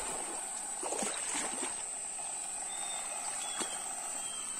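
A steady high-pitched insect drone over running stream water, with a few splashes and knocks from wading in the shallows.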